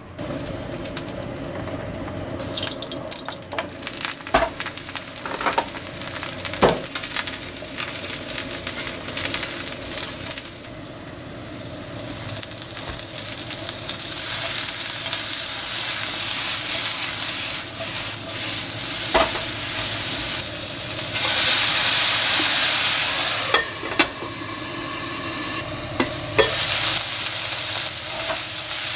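Eggplant slices sizzling in oil in a non-stick frying pan, stirred with chopsticks that click and knock against the pan now and then. The sizzling grows louder about halfway through, once grated ginger and garlic are added, and is loudest about three-quarters of the way in.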